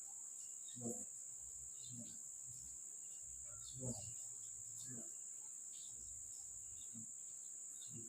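Steady high-pitched insect chirring, with a few short, low sounds breaking in, the loudest about one second and four seconds in.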